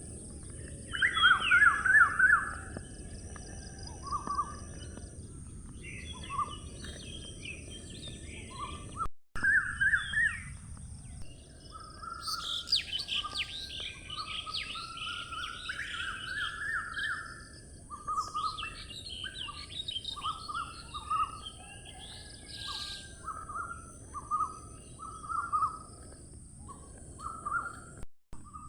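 Several wild songbirds singing and calling in overlapping short warbled phrases, some lower and some higher-pitched, over a steady high hiss and low background noise. The sound cuts out very briefly twice, once about a third of the way in and once near the end.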